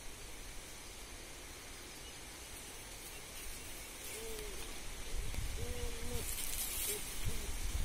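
Goats feeding on jackfruit, low rustling and munching noise that grows louder in the second half. Over it, a bird gives two short hooting calls, about four and six seconds in.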